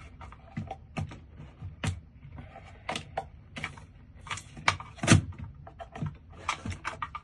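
Metal clicks and knocks of a stainless steel mortise lock body being handled and pushed into its cut-out in a door. The knocks come irregularly, the loudest about five seconds in.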